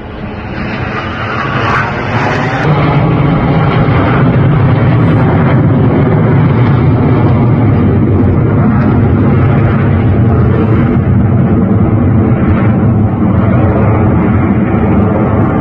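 Jet engine noise from a formation of nine BAE Hawk jet trainers flying overhead. It builds over the first few seconds, then holds loud and steady.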